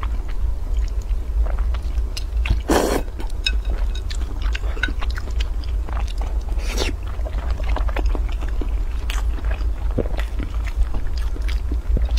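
Close-miked eating of spicy instant noodles and boiled eggs: wet chewing with many small mouth clicks. Two louder bursts of slurping and biting come about three and about seven seconds in, over a steady low hum.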